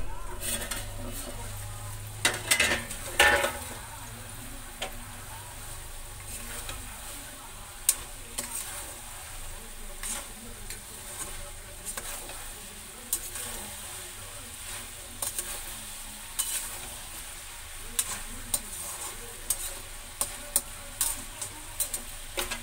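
Potatoes and peas frying and sizzling in a steel kadai while a steel slotted spoon stirs them, scraping and clicking against the pan. There are a few louder metal clatters about two to three seconds in.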